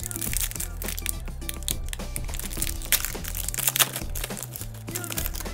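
Foil trading-card pack wrapper being torn open and crinkled, with sharp crackles, the loudest about three and four seconds in, over background music with a steady bass line.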